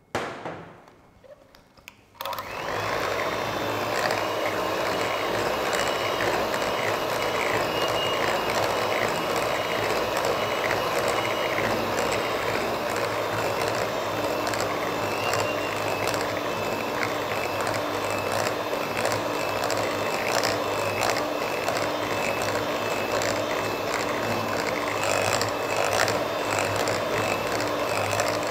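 Electric hand mixer running steadily, its beaters whisking egg into creamed margarine and sugar in a glass bowl for cake batter. It switches on about two seconds in, just after a short knock.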